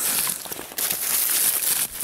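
Crackling rustle of dry reed stalks and frozen plant debris on a muskrat lodge being pushed aside by hand, with a short break about a third of the way in.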